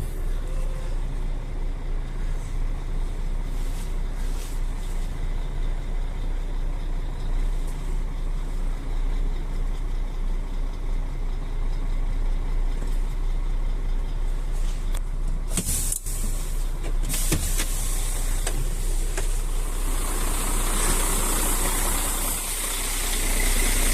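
Truck's diesel engine running steadily with an even low throb. A brief hiss comes about two-thirds of the way in, and a longer, louder hiss joins in for the last few seconds.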